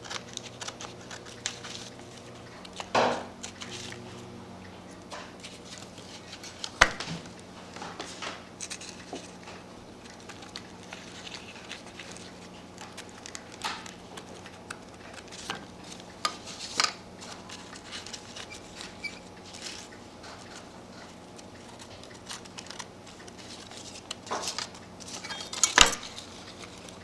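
Scattered clicks, taps and short scrapes of hand work as the glued paper on a cuckoo clock bellow is cut and trimmed, with sharp clicks about 7 and 26 seconds in. A faint steady hum runs underneath.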